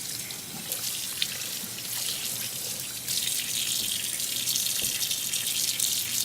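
Water running from a sink tap over hands being rinsed of soap, a steady splashing hiss that gets a little louder about three seconds in.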